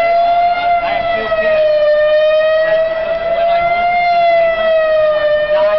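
Outdoor civil-defense tornado siren sounding one continuous wail, its pitch drifting gently up and down.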